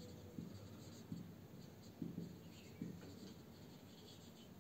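Marker pen writing on a whiteboard: a few faint, short strokes of the felt tip across the board.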